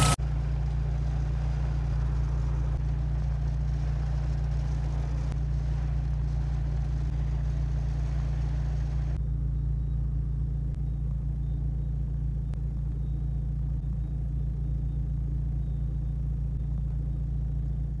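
Volkswagen engine idling steadily, a low even drone; the engine has an air leak that was traced to bad seals at the intake. A faint higher hiss over the drone drops away about nine seconds in.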